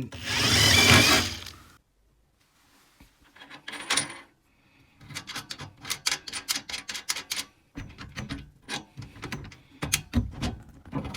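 Tools being handled: a loud rustling burst for the first two seconds, then a run of quick clicks and taps of hard parts knocking together.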